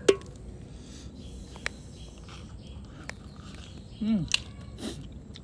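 A few sharp clicks and taps during a seafood meal, the loudest right at the start. About four seconds in, a person makes a short vocal sound that falls in pitch.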